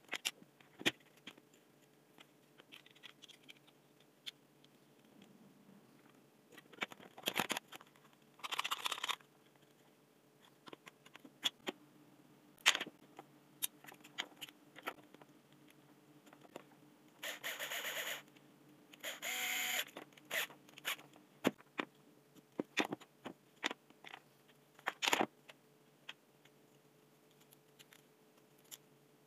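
Hands handling the plastic and metal parts of a dismantled cordless drill: scattered clicks and taps, with three short scraping rustles of about a second each, two of them close together a little past halfway.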